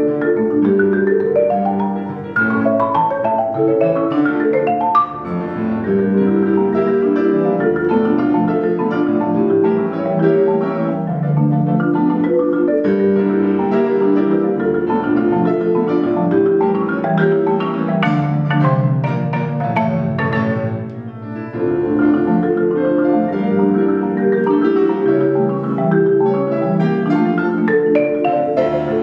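Concert marimba played with mallets: a fast, continuous passage of struck notes across the instrument's range.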